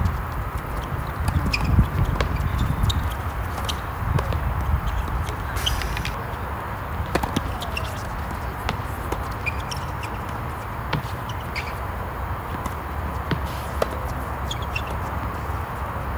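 Tennis ball being hit with rackets and bouncing on a hard court in a doubles rally: scattered sharp pops at uneven gaps, with shoes scuffing on the court, over a steady low rumble.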